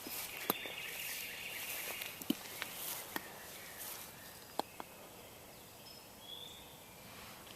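Quiet outdoor ambience with scattered light clicks and rustles, and birds calling: a buzzy call through the first two seconds or so and a short chirp about six seconds in.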